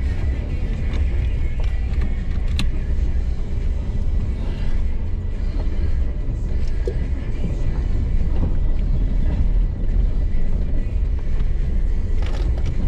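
An off-road vehicle driving over a dirt track: a steady low rumble of engine and tyres, with one sharp click about two and a half seconds in.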